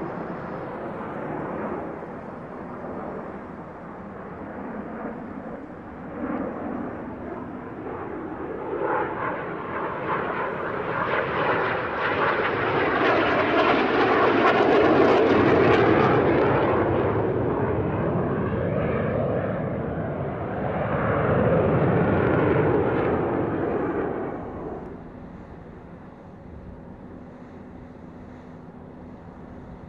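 Yakovlev Yak-130 jet trainer's twin turbofan engines as the jet manoeuvres through its display. The jet noise swells to its loudest about halfway through, swells again a little past two-thirds, then drops to a faint distant rumble for the last few seconds.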